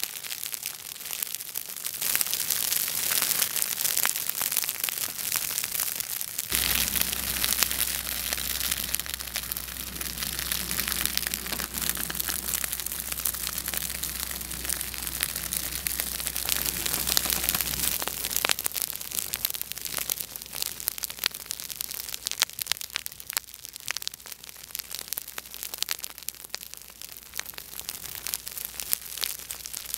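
Dry grass burning in a field fire, the flames crackling with many sharp snaps and pops over a steady hiss. A low steady rumble runs underneath from about six seconds in until about eighteen seconds.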